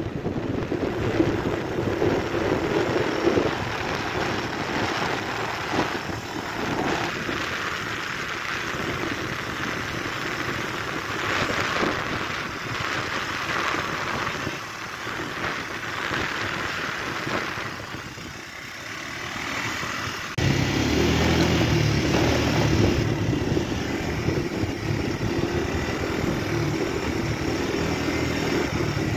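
Motor vehicle travelling along a street: steady road and wind noise, then a louder, lower engine drone that comes in abruptly about 20 seconds in.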